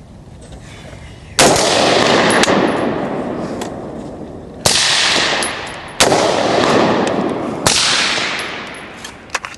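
Four rifle shots at an outdoor range, each a sharp crack followed by a long rolling echo that fades over a couple of seconds. The gaps between shots are uneven, about three, one and a half, and one and a half seconds.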